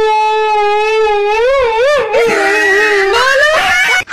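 Siberian husky howling: one long howl held at a steady pitch, wavering about a second and a half in, then sliding around in pitch and turning rougher before it stops just before the end.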